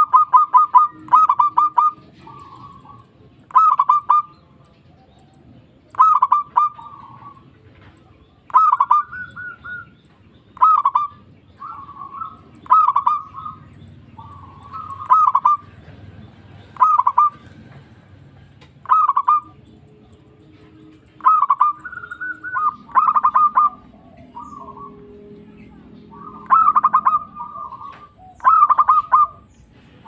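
Zebra dove cooing: short phrases of quick staccato coos, repeated roughly once a second with brief pauses.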